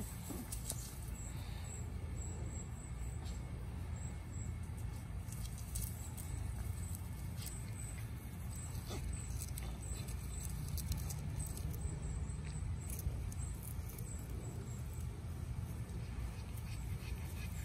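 Backyard ambience with a steady low rumble, light rustles and soft patter as Boston Terrier puppies play and run on grass. A faint, high chirp repeats through it.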